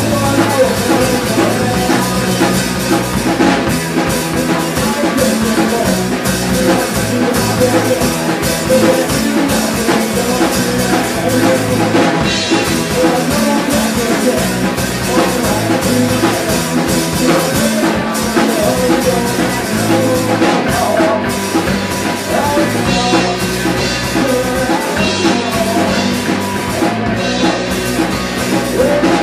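Live rock band playing a song: distorted electric guitar, electric bass and a drum kit.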